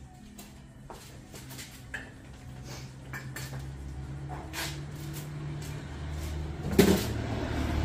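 Scattered light clicks and knocks of hard objects being handled, with one louder knock about seven seconds in, over a low hum that slowly grows louder.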